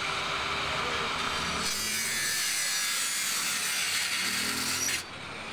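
Plywood wall panel being sawn: a steady rasping noise that turns harsher about two seconds in and cuts off suddenly near the end.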